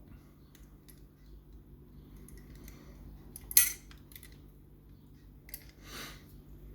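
Small metal parts of a dismantled lever mortice lock clicking and clinking as its levers are handled, with one sharp click about three and a half seconds in and a short rustle about six seconds in.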